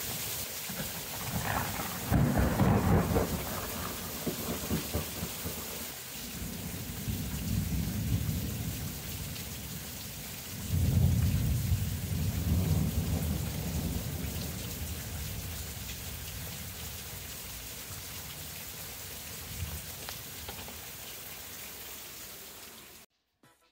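Thunderstorm: heavy rain pouring steadily, with thunder. The first clap breaks sharply about two seconds in, and two more rolling rumbles, around seven and eleven seconds in, die away slowly under the rain.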